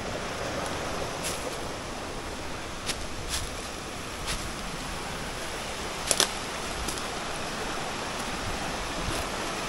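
Steady rush of running water from a woodland stream, with a few short sharp snaps and clicks scattered through it, the loudest a quick pair about six seconds in.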